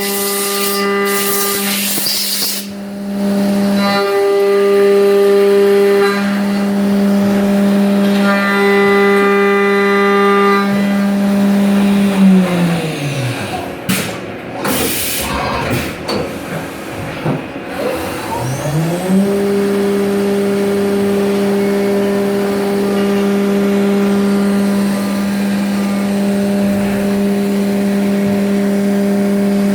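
Haas VF-2SS CNC mill's spindle running a Walter 1-inch two-flute cutter at 12,000 RPM through aluminum: a loud steady high whine that swells during cutting passes. About twelve seconds in the spindle winds down to a stop, a few sharp noises follow, and around nineteen seconds in it winds back up to speed and the cutting whine returns.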